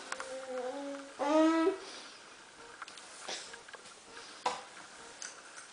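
A toddler's wordless vocalizing: a low hum, then a louder, higher voiced sound about a second in, followed by a few light taps.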